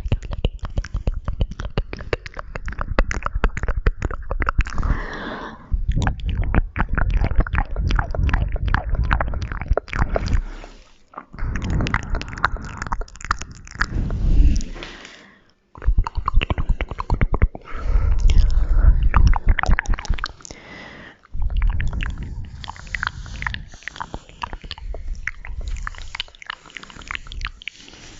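Close-miked ASMR mouth sounds: wet clicks and smacks of lips and tongue in quick runs of a few seconds each, with short breaks between them.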